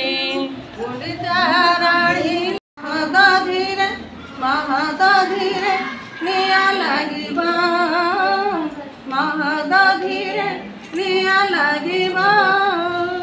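Women singing a bhajan (devotional song) unaccompanied, in phrases of held, wavering notes. The sound cuts out completely for a moment under three seconds in.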